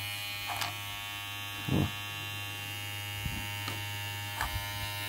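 Kemei KM-1986 hair clipper motor running steadily on a test run after its on/off switch was replaced, a steady electric buzz. A few short knocks sound over it, the loudest about two seconds in.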